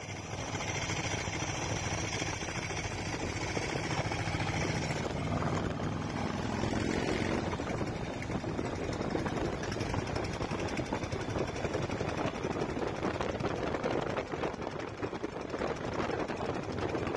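An 1100cc single-cylinder turbo diesel motorcycle engine running at road speed, a steady rapid pounding, mixed with wind and road noise from riding alongside on the highway.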